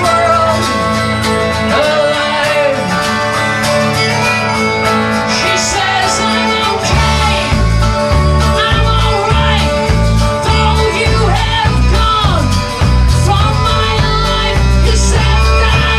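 Instrumental passage of a song, with guitar and fiddle carrying the melody. A heavy bass and drum beat comes in about seven seconds in.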